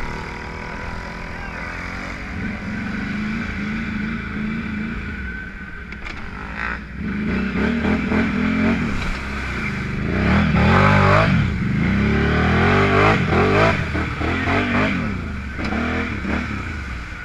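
Snorkeled ATV engine running through deep mud, steady at first, then revved up and down repeatedly from about halfway through, loudest a little past the middle.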